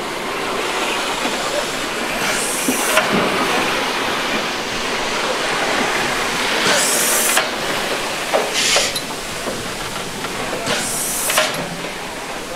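Class 52 steam locomotive moving slowly, with a steady hiss of steam. Three loud bursts of steam come about four seconds apart, and a shorter one falls between the second and third.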